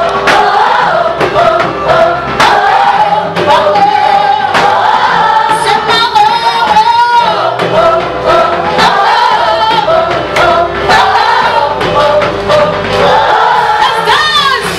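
Gospel choir singing a praise song with a band, a steady beat of drums under the voices.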